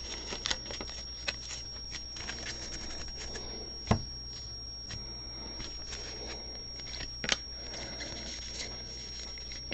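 Baseball trading cards being handled and flipped through: soft sliding and rustling with light clicks, a sharper click about four seconds in and another a little after seven seconds.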